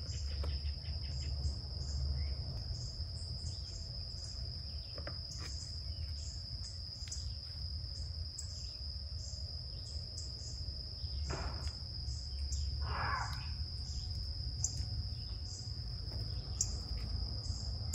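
Insects droning with a steady high-pitched tone, with short high chirps repeating over it and a low rumble underneath. A few brief rustles of leaves being handled come through, twice close together past the middle.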